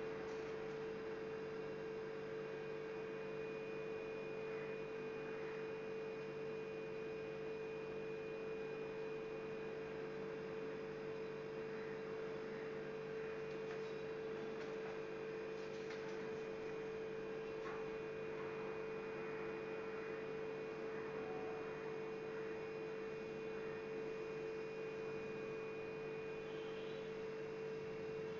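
A steady electrical hum on one pitch, with weaker lower tones beneath it. A few faint soft taps come around the middle.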